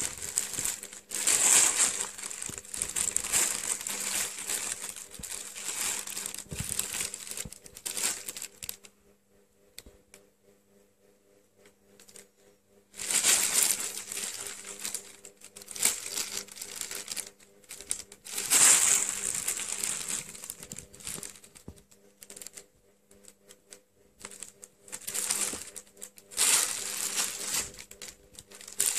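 Thin plastic bag crinkling and rustling in bursts as two cats paw, bite and wrestle with it. The rustling stops for a few seconds about a third of the way through, then comes back in several more bursts.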